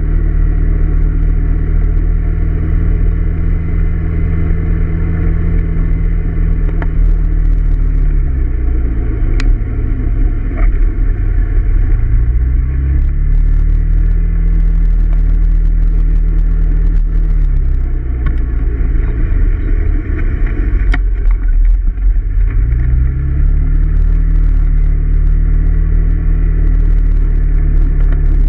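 Honda PCX 125 scooter's single-cylinder four-stroke engine running under way. Its note drops about eight seconds in, comes back up a few seconds later, then drops and rises again in the second half as the throttle is eased off and reopened.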